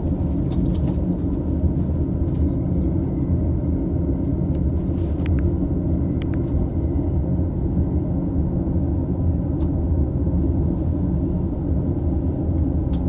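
Running noise inside the double-decker Green car of a JR East E233 series electric train: a steady low rumble, with a few faint clicks over it.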